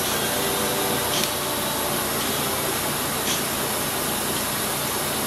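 Steady rushing hiss of air from airbrushing equipment, with two faint short ticks about two seconds apart.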